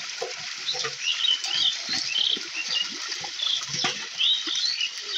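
Small birds chirping in short, repeated squeaky calls, over scattered splashing and sloshing of water.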